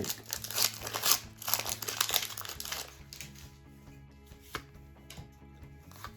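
Foil Pokémon booster pack crinkling and tearing open for about three seconds, over soft background music that carries on alone afterwards; a single sharp click about four and a half seconds in.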